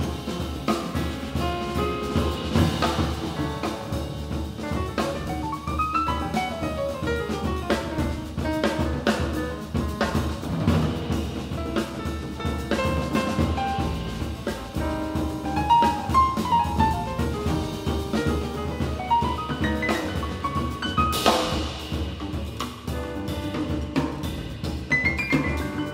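Live jazz band playing: piano runs over double bass and drum kit, including one long descending run about a quarter of the way in and a cymbal crash about four-fifths of the way through.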